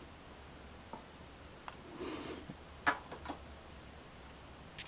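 Quiet room with a few faint small clicks and a brief soft rustle of hand handling, the test motor stopped.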